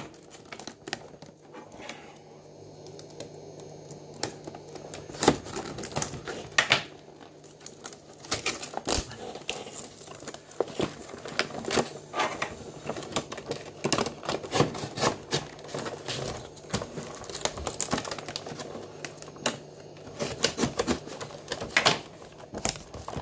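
Cardboard toy box and its packaging being handled and opened by hand: irregular clicks, taps and rustles.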